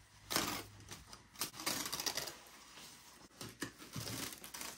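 Foam packing and a clear plastic bag being pulled off a large model-plane fuselage: irregular rustling and crinkling with scattered sharp crackles, in uneven bursts.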